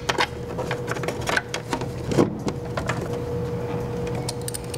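Irregular sharp clicks and taps of plastic 18650 battery modules and ribbon-cable connectors being pushed into place under a circuit-board frame, with a faint steady hum underneath.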